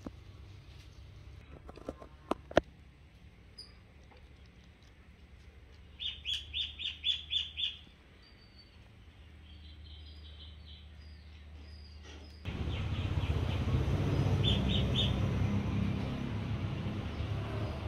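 A small bird chirping: a quick run of about seven high chirps about six seconds in, and shorter runs later. A few sharp clicks come near two seconds in, and a louder steady rushing noise sets in abruptly about two-thirds of the way through.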